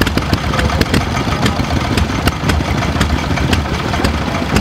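Old stationary engine running steadily and driving a flat-belt water pump, with sharp clicks about two to three times a second over a low throb. Water splashes from the pump's outlet pipe into a metal tub.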